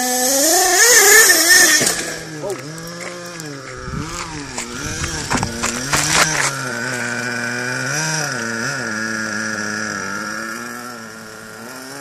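Nitro RC car's small O.S. glow engine running at high revs, its pitch rising and falling as the throttle is worked, with a few sharp knocks about four to six seconds in and the sound fading somewhat near the end.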